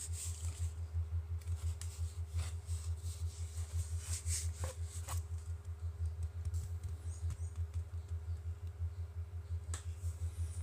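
A few light clicks and short rustles of hands handling small objects at a workbench, over a steady low hum.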